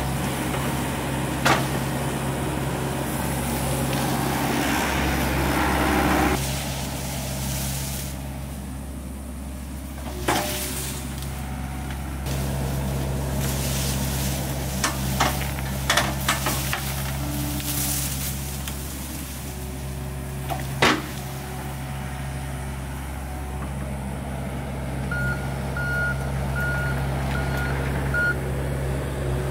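John Deere 60P mini excavator's diesel engine running steadily under load as it pushes over and tears out brush and small trees. Several sharp cracks and knocks, one about ten seconds in and another about twenty seconds in, come from snapping wood and the bucket. A short run of about five beeps sounds near the end.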